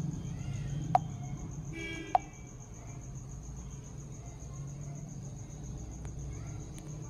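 Two sharp clicks about a second apart, about one and two seconds in, with a brief faint pitched tone just before the second, over a steady low hum and a faint high whine.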